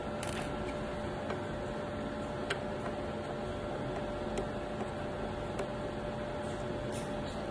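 Steady background hum with a constant tone, and a few faint, light clicks scattered through it, typical of small screws and a screwdriver being handled during disassembly.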